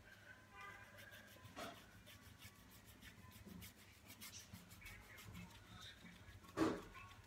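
Faint scratchy brushing of a paintbrush on cardboard in quick, light strokes, with a louder knock about six and a half seconds in.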